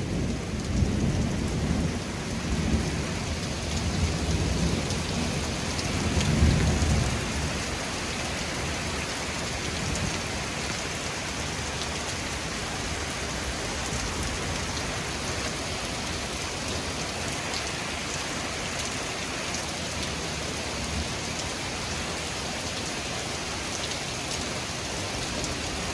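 Heavy thunderstorm rain pouring down steadily, with a long roll of thunder rumbling through the first several seconds, swelling about six seconds in and then dying away under the rain.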